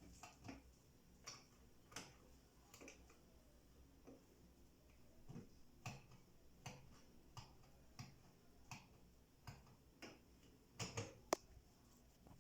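A series of faint, sharp clicks, roughly one a second and not quite regular, with a louder cluster of clicks near the end.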